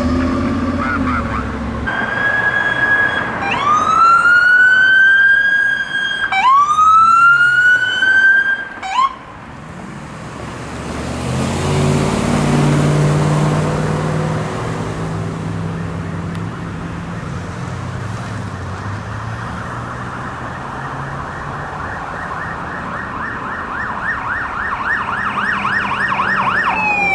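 Electronic sirens on responding fire department vehicles: three rising wail sweeps early on, then a vehicle passing with engine and road noise, then a rapid yelp siren growing louder as a fire engine approaches near the end.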